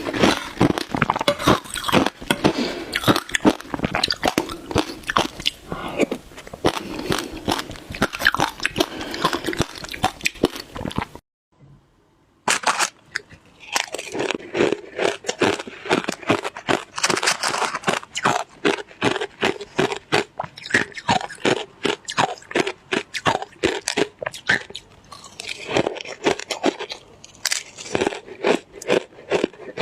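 Close-up chewing and crunching of shaved ice in the mouth: a dense, irregular run of sharp crunches, broken about a third of the way in by a sudden second-long silence.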